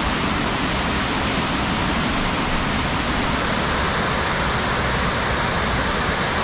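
A multi-tiered cascading waterfall rushing steadily, an even wash of falling water with no pauses or changes.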